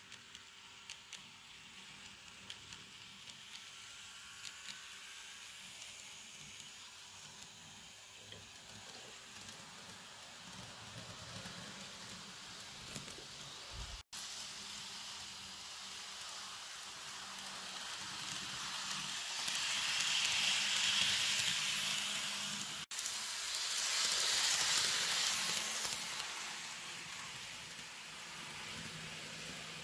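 N scale model train (Atlas NJ Transit ALP-45DP locomotive pulling multilevel coaches) running on sectional track: a thin whirring hiss of the small motor and wheels on the rails, with a few light clicks early on. It gets louder in two stretches in the second half.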